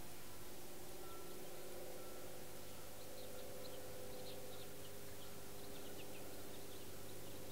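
Faint high-pitched chirps, a quick cluster of short notes starting about three seconds in and lasting a few seconds, over a steady low hum.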